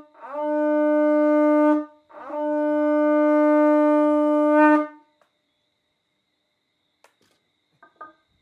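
Conch shell blown as a horn: the last instant of one blast, then two long steady blasts on the same low note, each opening with a quick upward slide in pitch, the second about three seconds long. A few faint clicks follow near the end.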